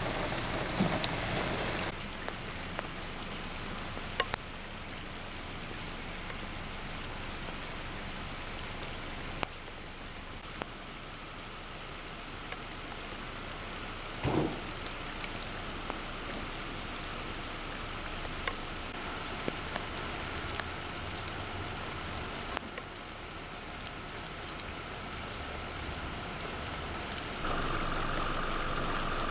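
Steady rain falling on standing floodwater. In the first couple of seconds a pickup truck's tyres are splashing through the flooded road.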